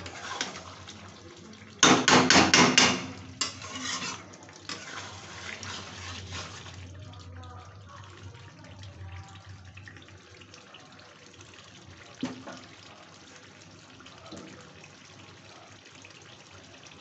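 Metal spatula scraping and knocking against a metal kadai while stirring chicken curry, loudest in a quick run of strokes about two seconds in, with a single knock later. Between the strokes the thick curry simmers and sizzles in the pan as its water cooks off.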